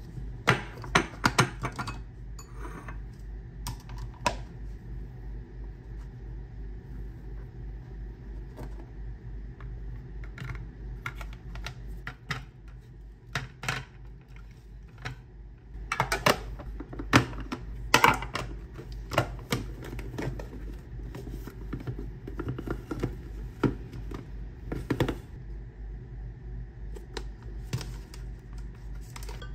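Scattered clicks, taps and knocks of kitchen containers being handled on a stone countertop: a glass food container with a snap-lock lid and a plastic bento box, with their lids and parts set down and fitted. A steady low hum runs underneath.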